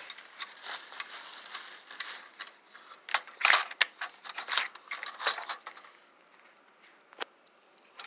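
Objects being moved and set down on a cluttered workbench: irregular clicks and knocks over rustling, loudest about three and a half seconds in, dying away after about six seconds.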